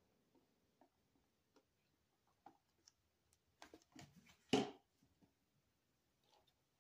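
Quiet room with a few faint small clicks and one sharper knock about four and a half seconds in, from small items being handled.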